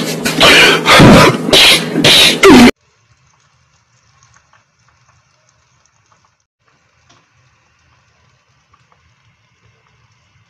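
A loud meme sound effect, a man's voice in several loud bursts, that cuts off suddenly under three seconds in. After it comes near silence with only a faint hiss and a faint low rumble.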